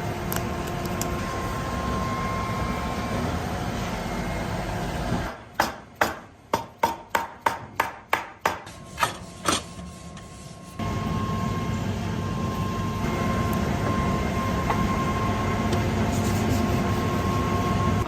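Steady sawmill machinery noise with a faint hum. About five seconds in, it gives way to a run of about a dozen sharp knocks, roughly three a second, over a quieter background. The machinery noise returns near the eleventh second.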